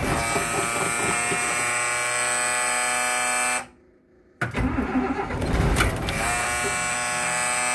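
Starter motor cranking the old bus's cold diesel engine, a steady whine with a chugging beat underneath, as the engine tries but does not catch. The cranking cuts off sharply about three and a half seconds in and starts again less than a second later.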